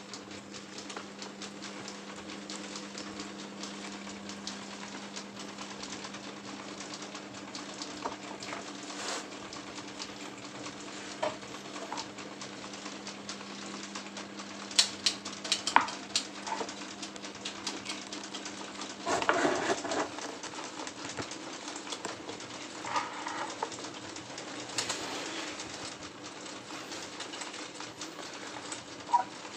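Electric propeller fans running, with a steady motor hum and the hiss of moving air. Scattered clicks and a few short, louder sounds break in about halfway through.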